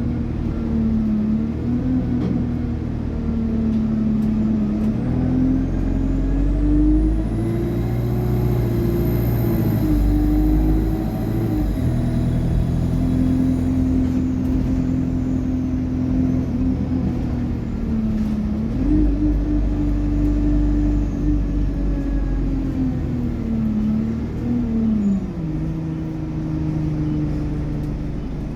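Alexander Dennis Enviro200 bus engine running under way through its Allison automatic gearbox. Its pitch climbs and drops back several times as the gears change. A thin, high turbocharger whine rises and falls in the first half.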